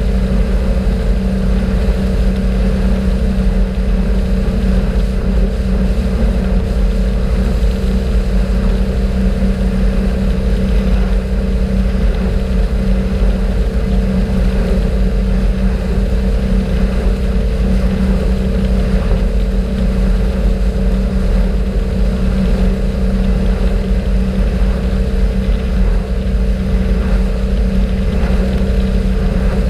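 Motorboat engine running steadily under way, a constant low drone with a few steady tones in it, over the rush of water from the wake and wind on the microphone.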